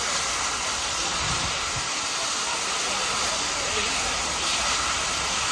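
Streamlined C38-class Pacific steam locomotive 3801 standing with its safety valves lifted, blowing off steam in a steady hiss: the boiler is at full working pressure.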